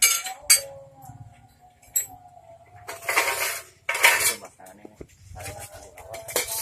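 Sheet-metal parts of an electric grass chopper being handled: sharp metal clinks at the start and about half a second in, then two louder scraping rattles about three and four seconds in. The motor is not running.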